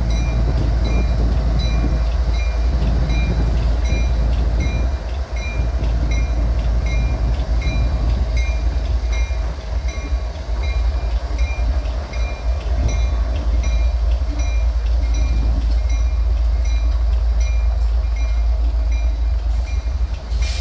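CSX diesel-electric locomotives rolling slowly past with a steady, heavy engine rumble. A bell dings steadily about twice a second over it.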